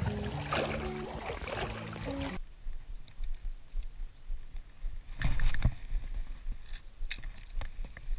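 For about two seconds, background music with steady notes plays over splashing water. It then cuts to quieter open-air sound: scattered clicks and knocks from a spinning rod and reel being handled, a brief rushing noise about five seconds in, and a few sharp ticks near the end.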